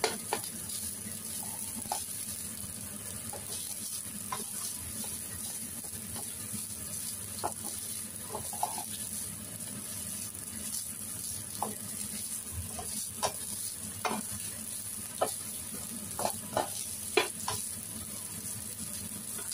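Fried rice sizzling steadily in a pan while being stirred and tossed with a spatula, with irregular scrapes and taps of the spatula against the pan.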